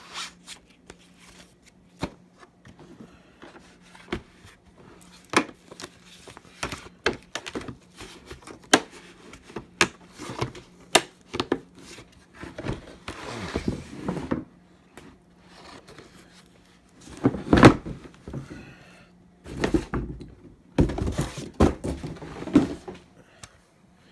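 Hands handling a hard-plastic carry case and its contents: a string of clicks and knocks from plastic parts, with a loud thunk about two-thirds of the way through and short spells of rustling paper and plastic wrap.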